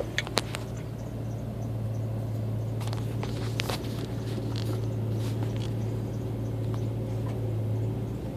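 Steady low hum inside a truck cab, with two faint clicks in the first half second and soft scattered ticks and rustles in the middle.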